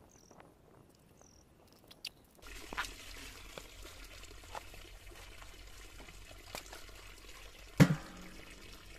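Natural spring water pouring from a pipe spout into a shallow puddle: a steady trickling splash that starts suddenly about two and a half seconds in. Near the end there is one sharp knock.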